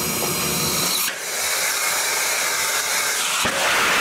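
Agnikul's fully 3D-printed cryogenic rocket engine in a static test firing: a loud, steady rushing hiss of exhaust. The hiss shifts abruptly about a second in and surges louder after a sharp click near the end.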